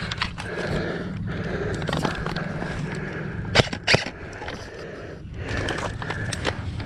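Scraping and rustling from a player moving low on the ground during an airsoft game, over a steady low rumble. Two sharp snaps come about a third of a second apart midway through.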